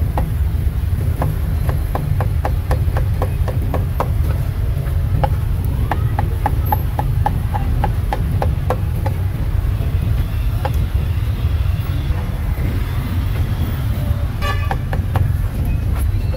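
Roadside street-market ambience: a steady low rumble of traffic, with a run of quick short knocks, about three or four a second, for several seconds in the first half, and a brief tone near the end.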